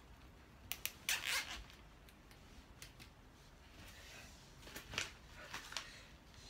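Nylon cable ties being zipped tight through their ratchet heads to fasten wire lattice panels: a couple of sharp clicks, then a short zipping rasp about a second in, and more rustling and clicks around five seconds in.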